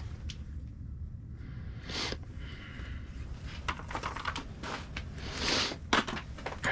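Gear handling inside an ice-fishing shack: soft rustles about two seconds in and again near the end, with scattered light clicks, over a steady low rumble.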